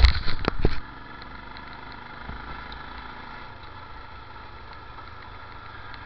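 Motorcycle running steadily on the move, with an even wash of engine and road noise. A few loud, sharp knocks come in the first second.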